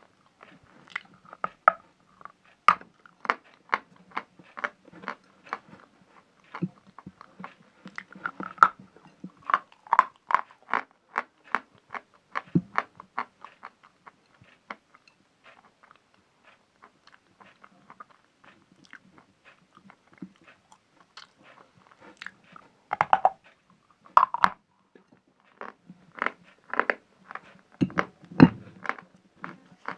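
Close-up crunching and chewing of dry pieces of natural chalk: crisp, repeated bites and crunches, several a second. It thins out to softer chewing in the middle, and the louder crunchy bites come in clusters near the end.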